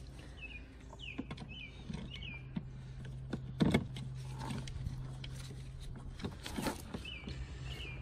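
Hand screwdriver fitting a short trim screw in a car door's inner-handle recess: light clicks and scrapes, with a louder knock about halfway through. Under it runs a steady low hum, and a small bird chirps a few times near the start and again near the end.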